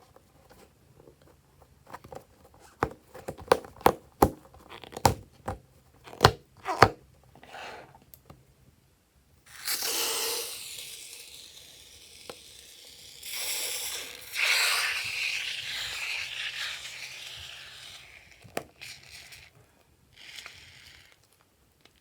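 Slime being handled: a run of sharp sticky pops and clicks, then longer stretches of crackling, tearing rustle as it is pulled and squished.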